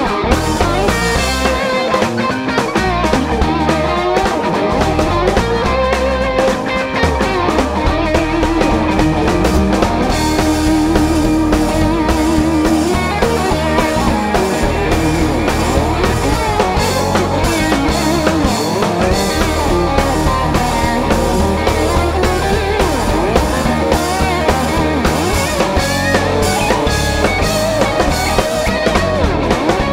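Live rock band playing a song: guitar over a drum kit.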